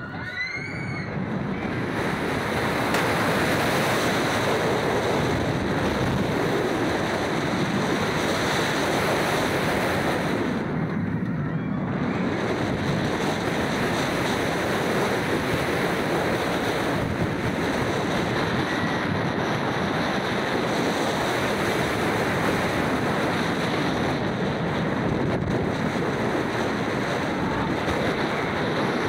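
Wind rushing hard over the microphone of a front-row rider's camera on a Bolliger & Mabillard steel wing coaster at speed. It builds over the first two seconds as the train drops, then holds as a steady loud rush, with a brief dip about eleven seconds in.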